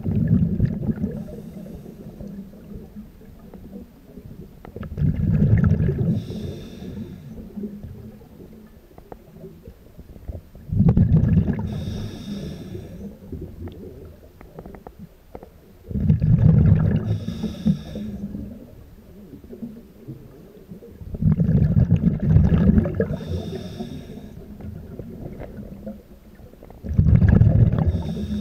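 Scuba diver breathing through a regulator underwater: a rumble of exhaled bubbles with a fainter regulator hiss, repeating about every five seconds.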